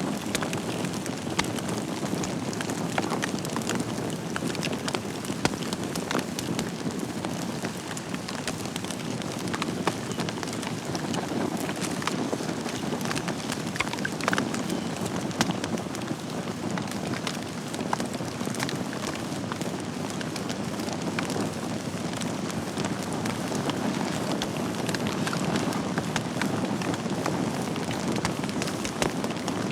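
Wood fire burning in a fireplace: a steady hiss and rumble of flames with dense crackling and occasional louder pops of burning logs.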